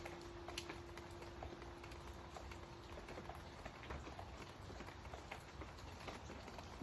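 Rain falling, with irregular patter and ticks of drops. A single pure ringing tone holds under it and fades away about halfway through.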